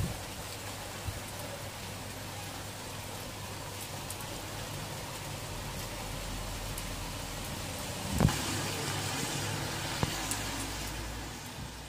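Steady rain falling on a wet street, with a van driving past on the wet road through the second half, its engine rumble and tyre noise rising and then fading near the end. A sharp knock about eight seconds in.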